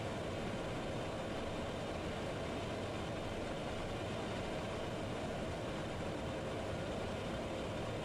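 Steady cockpit noise of a private jet on final approach in landing configuration, gear down and flaps at 35: the rush of airflow over the airframe mixed with the hum of its jet engines.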